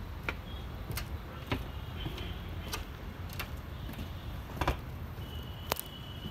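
Steady low rumble of open-air background noise, with scattered sharp clicks at irregular intervals and a few brief high chirps, the longest near the end.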